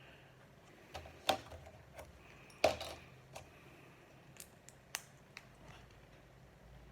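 Small plastic Lego bricks clicking and clattering as they are handled and pressed together: a scattering of sharp separate clicks, the loudest a little under three seconds in.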